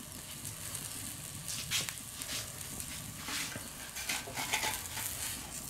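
Chicken wrap sizzling in oil on a hot steel fire plate over a wood fire, a steady hiss with a few faint pops scattered through it.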